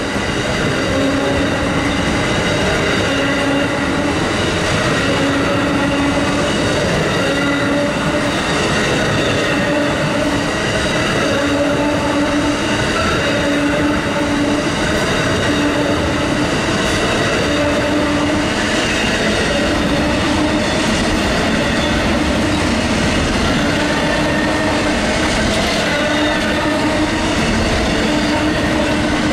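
Amtrak Auto Train passenger cars and autorack car carriers rolling past at speed: a steady rumble of steel wheels on rail, with ringing squeal tones and a low tone that pulses on and off about every second and a half.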